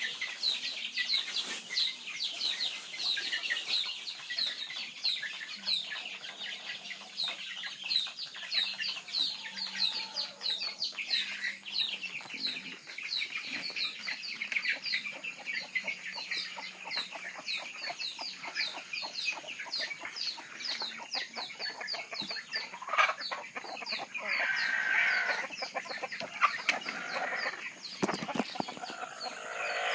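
A flock of chickens calling continuously, with many short high peeping calls overlapping and clucking, a louder burst of calls a little over twenty seconds in. A faint low steady hum runs underneath.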